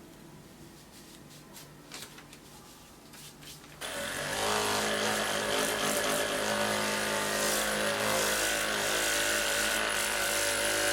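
A small handheld electric motor device switches on about four seconds in and runs steadily at one constant pitch.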